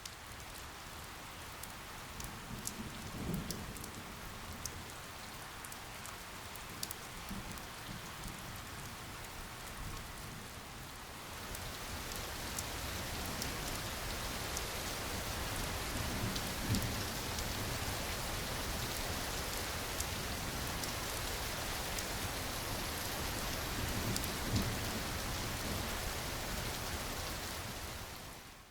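Steady rain falling, with individual drops ticking, growing heavier about a third of the way in. A few low rumbles sound under it.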